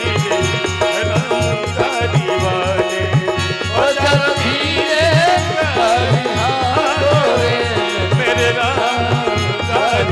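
Bhajan kirtan devotional music: hand drum beating a steady rhythm of about three to four strokes a second under held melodic tones, with a rattling percussion layer. A voice sings a wavering melodic line from about four seconds in to past the middle.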